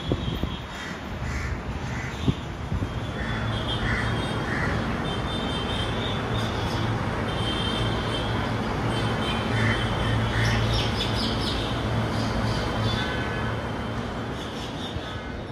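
Station ambience of a Hyundai Rotem metro train moving at walking pace: a steady low hum with faint high tones. Over it a bird calls in short series of two or three, about a second in, near four seconds and again near ten seconds.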